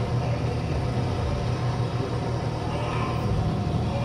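A steady low rumble, like an engine idling, holding level without change.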